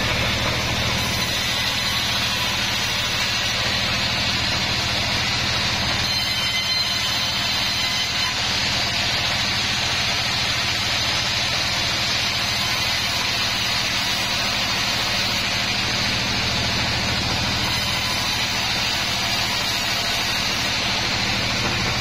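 Vertical band sawmill running steadily: a low motor hum under the even hiss of the band blade ripping planks fed across its table.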